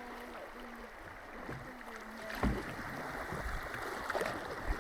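Water rushing along a canoe hull as it runs a shallow stretch of current. About halfway through and again near the end, sharp knocks sound as the canoe strikes rocks hard enough to scrape paint off the hull.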